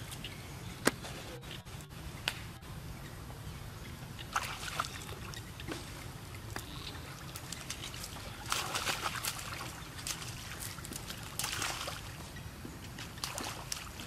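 Shallow pond water splashing and sloshing as macaques jump, wade and climb through it, with louder bouts of splashing about four and a half, eight and a half and eleven and a half seconds in, over a steady low rumble.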